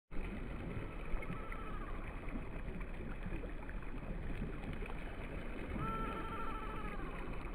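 Small waves lapping and washing over a sandy shoreline in a steady wash. A faint drawn-out wavering tone sounds twice over it, more clearly about six seconds in.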